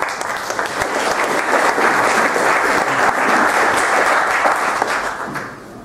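Audience applauding: many people clapping. The clapping swells over the first two seconds and dies away near the end.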